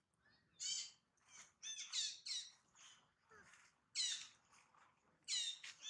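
A series of short, high-pitched animal calls, several falling in pitch, coming every half second to a second with short gaps between.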